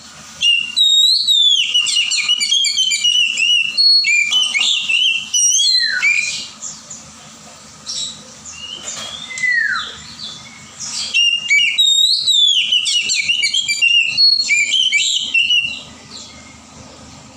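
Oriental magpie-robin singing: two long phrases of quick, varied, high whistled notes, each about five seconds, with single falling whistles between them.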